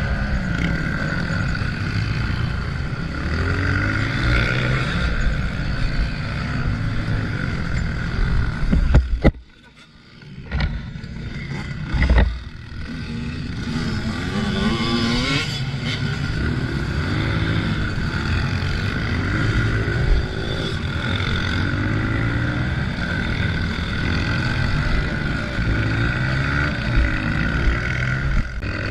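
Honda CRF125F's single-cylinder four-stroke engine revving up and down as the bike is ridden off-road. About nine seconds in the engine sound suddenly drops away for a second or two, with a few sharp knocks, then picks up and runs again.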